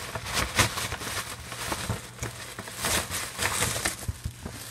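Paper rustling and crinkling as a gift is handled and opened, with a few sharp clicks and taps.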